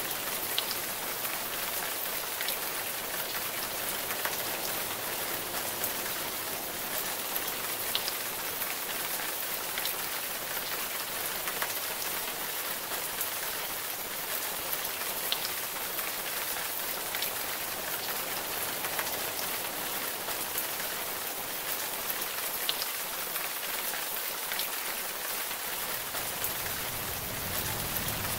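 Steady rain: an even hiss with scattered sharp drop ticks.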